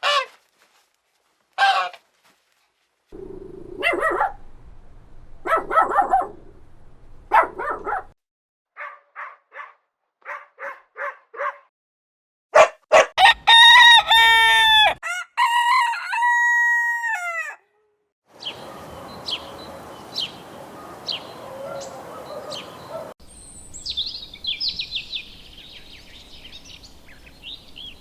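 A rooster crowing loudly, with long held notes, amid a run of short chicken clips that start and stop abruptly: clucking, short calls and some high chirping.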